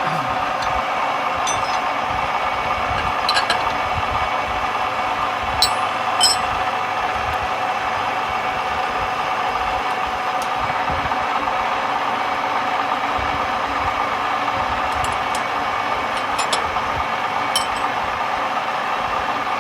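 A workshop machine running steadily with a continuous whine, with a few light clicks and ticks over it.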